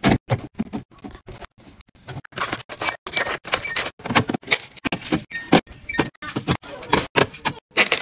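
Plastic sports-drink bottles knocking and clattering as they are handled and set on fridge shelves: a quick, irregular run of clunks and clicks.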